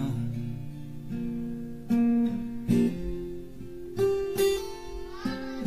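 Background music: an acoustic guitar plays an instrumental passage with no singing.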